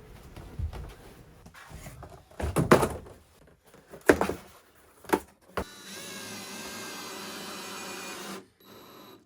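A few loud knocks and scrapes of handling, then a power drill's motor running steadily for about two and a half seconds before stopping.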